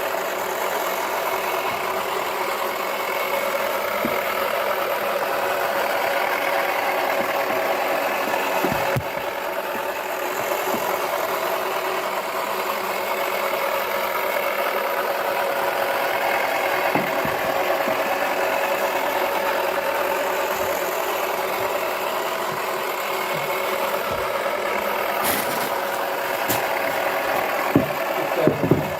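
Toy washing machine's small motor running steadily, a whirring hum with several steady tones as the drum turns, with a couple of sharp clicks near the end.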